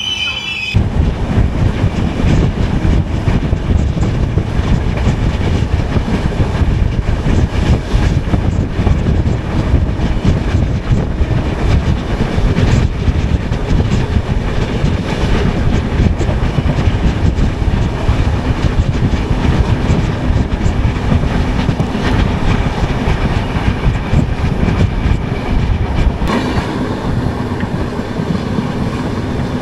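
Shiv Ganga Express sleeper-class coach running along the track, heard from inside the coach: a steady, loud rumble of wheels and coach on the rails. The noise starts abruptly just under a second in, and its tone shifts a few seconds before the end.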